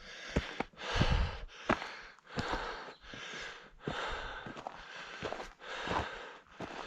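A hiker breathing hard, in and out about once a second, winded from climbing a steep mountain trail at altitude.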